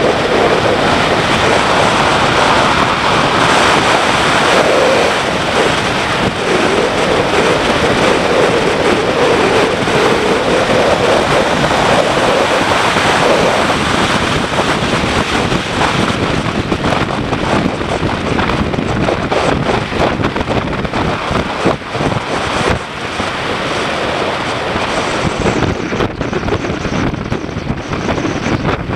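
Riding wind rushing over the microphone of a BMW G650GS motorcycle under way, with the bike's single-cylinder engine note wavering in pitch through roughly the first half. In the second half many short knocks and ticks come through the rush.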